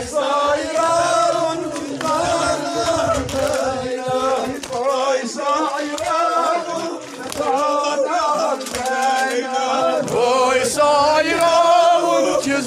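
A man chanting a noha, a Shia mourning lament, in long drawn-out melodic lines.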